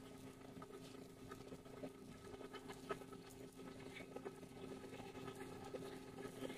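Stone wet grinder (melanger) running, its stone rollers turning through smooth nut butter paste: a faint, steady motor hum with scattered soft clicks.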